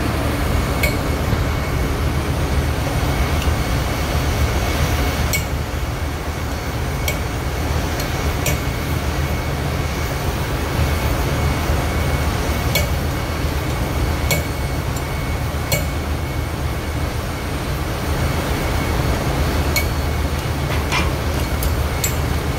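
Steady low machinery rumble of a ship's engine room, with a gas torch flame hissing as it heats the bearing on an electric motor's rotor shaft so a puller can draw the bearing off. Sharp metallic clicks come now and then, about ten in all.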